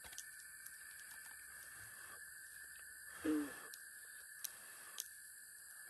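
Quiet steady background hiss. About three seconds in, a person makes one short low murmur, and two faint clicks follow near the end.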